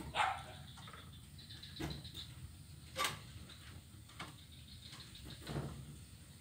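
A crow caws once at the start, followed by a few short, sharp knocks and taps, the sharpest about three seconds in, over a faint outdoor background with faint bird chirps.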